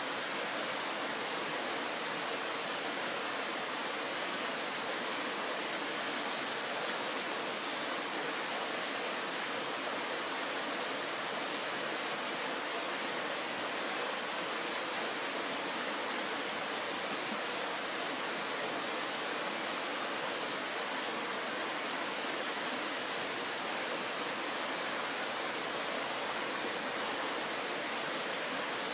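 Kirowa Woda mountain stream rushing steadily over stones and gravel in a shallow riffle, an even, unbroken rush of water.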